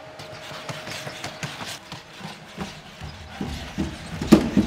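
Boston Dynamics SpotMini robot walking and climbing wooden stairs: its feet clack and knock irregularly on the wooden floor and steps, over the mechanical noise of its joints. The footfalls come faster and louder in the second half, and one hard knock near the end is the loudest.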